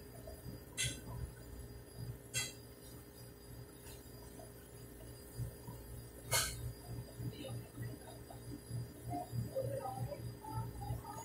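A steady low hum, with three sharp clicks: about a second in, two and a half seconds in, and a louder one a little past the middle.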